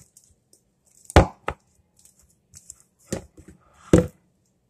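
A plastic cup packed with slime knocked against a countertop: four dull knocks, the loudest about a second in and another near the end.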